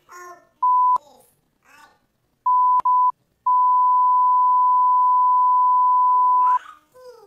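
Censor bleeps: a steady, high beep tone cuts in four times over a child's speech to mask swear words. There is a short bleep about half a second in, two quick ones around two and a half seconds, then one long bleep of about three seconds.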